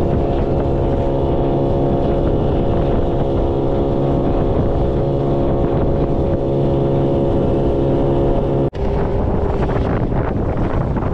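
Small outboard motor running at a steady, unchanging speed, driving an inflatable boat through choppy water. About nine seconds in the sound cuts and gives way to rougher wind and water noise with the motor much less distinct.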